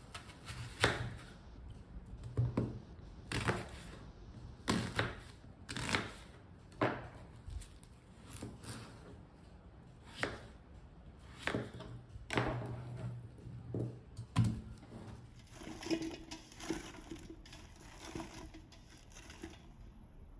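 Kitchen knife cutting a red onion and peeled potatoes on a plastic cutting board, each cut ending in a sharp knock on the board, irregular and roughly one a second. About fifteen seconds in the knocks stop and give way to a softer, steady rustle for a few seconds.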